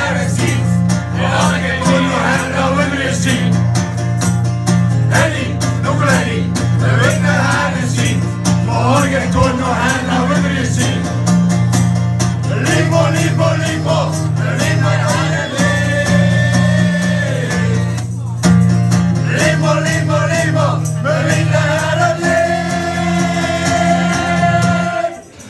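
A group of people singing a song together to guitar accompaniment. Near the end they hold one long note, then the song stops.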